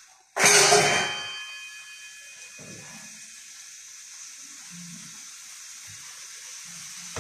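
A sharp metal clang about half a second in, ringing briefly, then the steady hiss of pak choy stems cooking in their own water in a wok on a gas stove.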